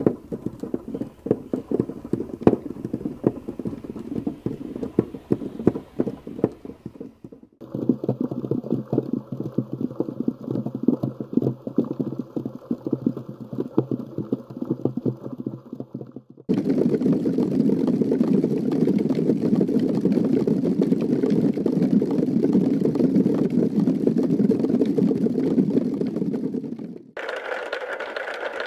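Many prepared dc-motors swinging felt balls on wires against the insides of cardboard boxes: a dense, irregular rain of soft taps and clicks. The texture cuts abruptly to a different mix about 7 s in, and becomes louder and denser about 16 s in. Near the end it changes to a lighter rattle with a steady high tone, as cork balls strike small MDF boxes.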